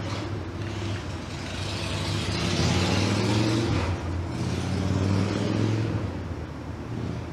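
A motor vehicle driving past, with a low engine hum under tyre noise that swells over a few seconds and fades near the end.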